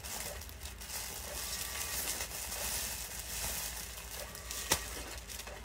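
Plastic garment bags rustling and crinkling as bagged clothes are rummaged through on a stack, with one sharp click near the end.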